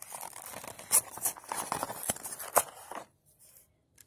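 Toy packaging of card and plastic being handled and pried open by hand: rustling and crinkling with a few sharp snaps. The sound cuts off suddenly about three seconds in.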